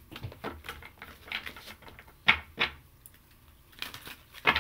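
A run of light taps and clicks, with a few sharper knocks about two and a half seconds in and again near the end.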